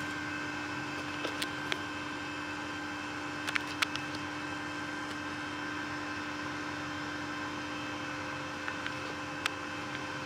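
Steady hum of a Vevor 210A TIG welder's cooling fan running while the machine is switched on, with a few light clicks now and then.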